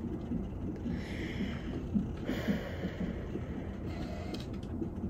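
Low, steady rumble of background noise with faint rustling. Two soft hissing swells come about one second and two and a half seconds in.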